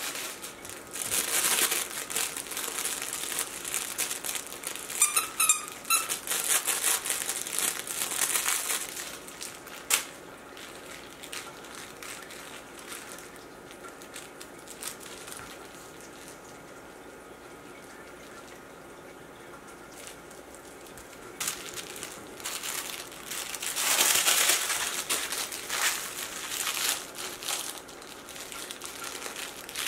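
Westie puppy playing with a crinkly plush toy: two stretches of crinkling, one over the first nine seconds or so and another from a little past twenty seconds lasting several seconds.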